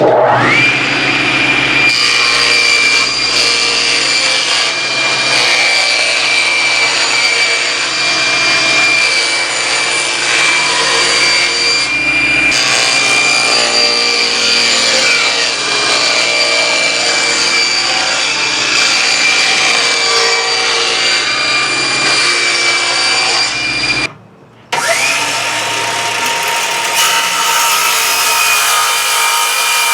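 Table saw spinning up and running steadily with a high, even blade whine while ripping plywood to width. About 24 s in the sound drops out briefly, then the saw spins up again and runs.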